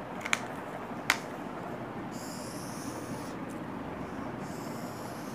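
Marker pen drawing on a whiteboard: two light taps in the first second, then two long, high, scratchy squeaking strokes, one about two seconds in and another near the end, over steady room hum.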